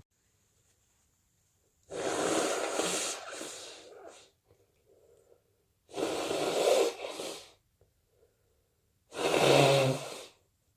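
A person with a cold blowing their nose three times, each blow a noisy rush lasting one to two seconds, the last the loudest. Faint breaths come between the blows.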